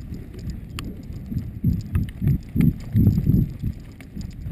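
Running footsteps with the thud and jostle of a body-worn camera, low thuds about three a second, loudest in the middle.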